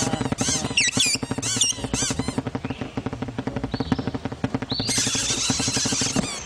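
Animated cartoon birds chirping and squeaking in a fast string of short calls over a steady rhythmic pulse. Near the end comes a bright hiss with a held high cry in it.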